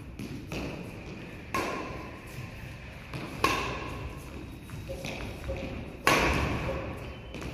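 A player's feet stamping and landing on a badminton court during footwork lunges: four heavy thuds, the loudest about six seconds in, each ringing on in an echoing hall.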